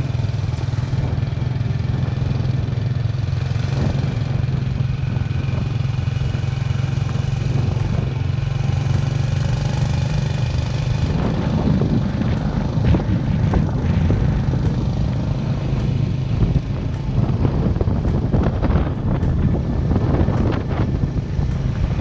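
Motorbike running along the road, its engine a steady low hum under road and wind noise; the noise turns rougher and more uneven from about halfway through.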